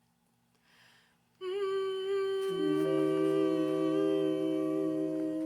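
Voices humming long held notes in harmony. One note starts about a second and a half in, two or three more join about a second later to make a chord, and all stop just before the next singing begins.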